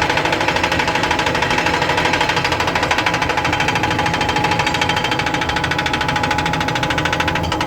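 Excavator-mounted hydraulic breaker (jack hammer) pounding with rapid, even blows over the excavator's running diesel engine; the hammering stops right at the end, leaving the engine running.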